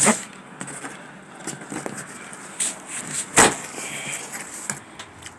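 Cardboard box being handled and its flaps pulled open: scattered rustles and scrapes of cardboard, with two louder scraping rushes, one right at the start and one about three and a half seconds in.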